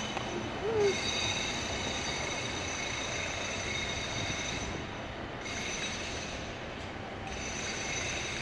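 West Midlands Metro tram running away along street track, a steady running noise with a faint, steady high-pitched squeal from its wheels.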